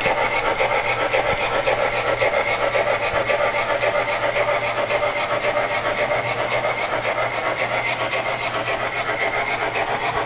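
MTH Proto-Sound 3.0 decoder in an HO-scale PRR 2-8-2 Light Mikado steam locomotive playing steam exhaust chuffs through the model's small onboard speaker as it runs under power. The chuffs come in a steady, even beat that fades slightly near the end.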